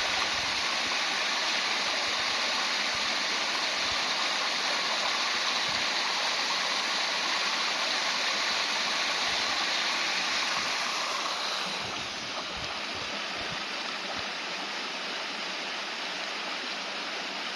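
Stream water rushing and splashing over stones in a steady hiss, easing slightly about twelve seconds in.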